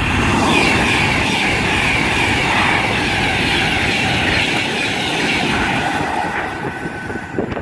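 Virgin Class 390 Pendolino electric train passing at speed, a loud steady rush of wheels on rail and air.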